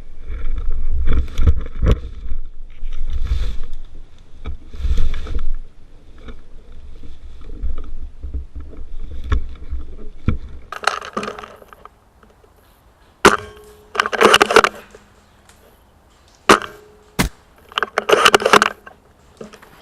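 Rustling movement with rumble on the microphone, then two sharp snaps a few seconds apart from a spring-powered VSR-10 bolt-action airsoft rifle firing, each with a short metallic ring and followed by about a second of clattering as the bolt is cycled.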